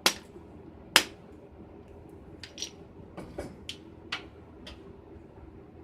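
Two sharp strikes of a rawhide mallet on a bullet core casting mold, near the start and about a second in, followed by several lighter metallic clicks and taps.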